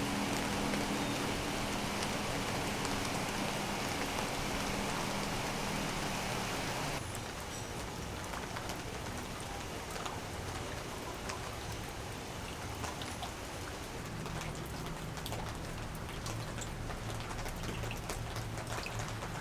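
Steady rain falling. About seven seconds in it switches abruptly to a quieter patter with scattered drips, and a faint low hum sits underneath at times.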